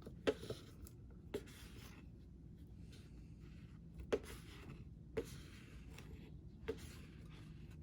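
Measuring cup scooping and leveling cornstarch: about six short, faint scrapes and light taps over a low steady hum.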